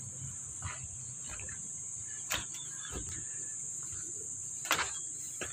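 A steady high-pitched drone of insects, with a few faint knocks and taps.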